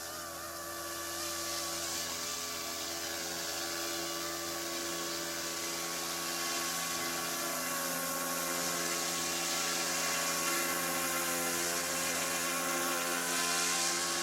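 Yuxiang F09 Black Hawk RC helicopter in flight: a steady small electric motor whine with rotor buzz, its pitch wavering gently as the throttle is worked.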